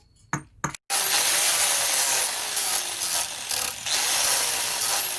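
Two hammer blows, then, about a second in, a loud continuous grinding noise from a power tool at work, its pitch sagging now and then under load.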